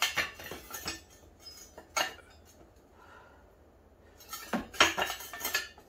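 Steel shopping-cart frame tubing clanking and clinking as it is handled, a few separate sharp knocks in the first two seconds, then a quick flurry of clinks near the end.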